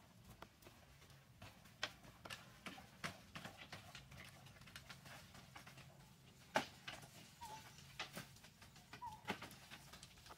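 Faint scattered taps and clicks from hand work on a bamboo-and-mud wall, the sharpest about six and a half seconds in, with two short bird chirps in the second half.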